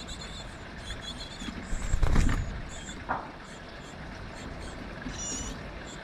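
Magpie scrabbling and flapping at a wooden nest box, with a short, louder scuffle about two seconds in. Around it come repeated high, thin peeps from small birds, and a short descending call near the end.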